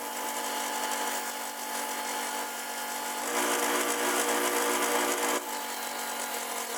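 Table saw motor running with an 80-grit sanding disc on its arbor while wood is sanded against the spinning disc; the gritty sanding noise swells for about two seconds from around three seconds in.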